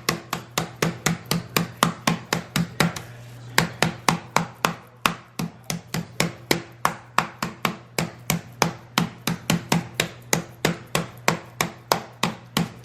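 Chicken breasts wrapped in plastic wrap being pounded flat, a rapid even run of thuds at about four blows a second with a short break about three seconds in. A steady low hum runs underneath.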